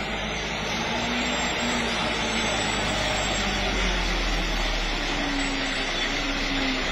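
A loaded light truck's engine running as it climbs round a bend toward the listener, under a steady rushing noise that grows slightly louder as it approaches.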